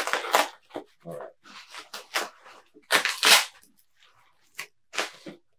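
Parcel packaging being torn open and unwrapped by hand: irregular crinkling and tearing bursts, loudest about three seconds in, then fewer and quieter.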